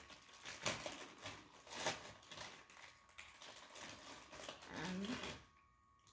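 Foil blind-bag packaging being handled and opened by hand: a string of irregular small crinkles and crackles that stops about five seconds in.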